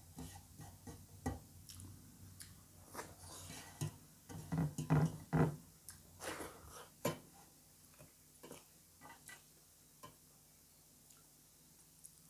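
Close-up eating sounds of rice eaten by hand from a metal plate: fingers mixing and scooping the rice, then mouth sounds of eating, with a cluster of louder smacks about five seconds in and fainter chewing clicks later on.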